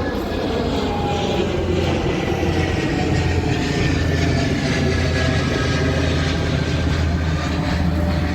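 Jet aircraft passing low overhead: a steady rumble with a thin engine whine that slides slowly down in pitch.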